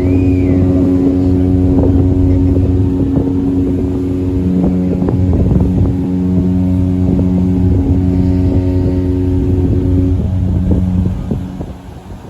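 Large ship horns sounding long blasts together in a horn exchange between cruise ships: at least two horns of different pitch, a higher one and a deep one, held steady and overlapping. The blasts stop about ten seconds in.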